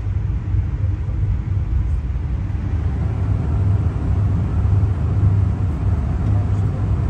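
Steady low rumble of a moving passenger train heard from inside its dome car: the cars running over the rails at speed, with no distinct clicks or horn.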